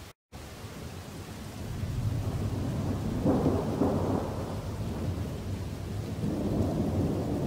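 Rolling thunder: a low rumble builds about two seconds in, swells into a louder peal about three seconds in, then keeps rumbling.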